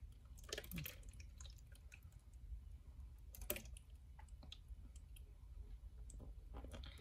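Water trickling from a plastic cup into a tumbler's narrow fill hole: faint, scattered drips and small clicks over a low steady hum.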